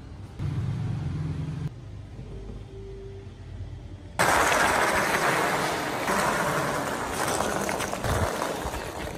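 Wooden model pickup truck rolling across rough concrete: a loud, steady rushing noise from its wooden wheels that starts suddenly about four seconds in. A brief low hum comes just before, near the start.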